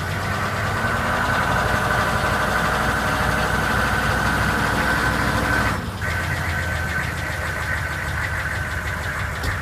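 A Chevrolet K2500's 6.5L V8 diesel engine running at idle with the knock that the owner is recording it for. The sound dips briefly a little under six seconds in.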